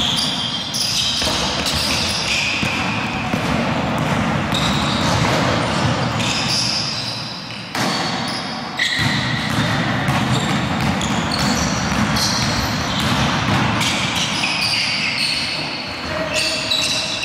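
Basketball game noise in an echoing gym: the ball bouncing on the hardwood floor in repeated thuds, with short high sneaker squeaks over a steady din.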